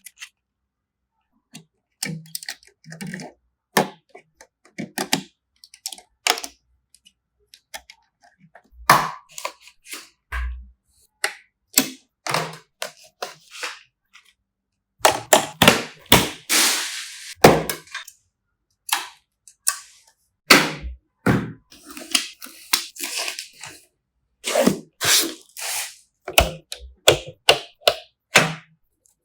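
Computer parts being handled and fitted during a PC build: a long series of separate sharp clicks, clacks and taps of plastic and metal, with a few duller knocks and one low thud about ten seconds in.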